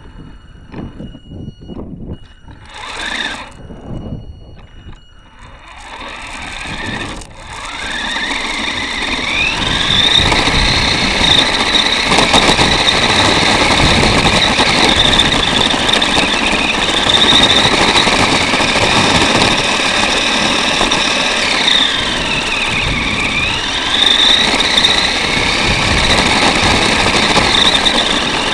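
Revell Lion 4x4 RC car's electric drive motor and gears whining as it drives, heard from on board the car. It starts quiet with a few knocks, then speeds up about six to ten seconds in, the whine rising in pitch. The whine dips briefly and climbs again a little past twenty seconds in.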